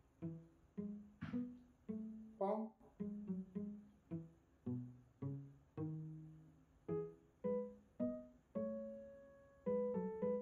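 Background music of plucked string notes, pizzicato style, in a bouncy pattern of about two notes a second.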